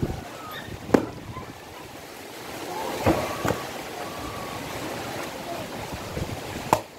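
Firewood being split with a long-handled steel blade: four sharp chops into wood, the loudest about a second in and just before the end. Steady wind noise on the microphone runs underneath.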